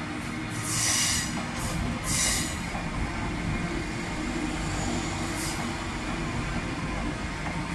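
Queensland Rail electric multiple-unit train running past along the platform, a steady low rumble of wheels on rails. Short bursts of high-pitched hiss or squeal from the wheels come about a second in, at two seconds and again near five and a half seconds.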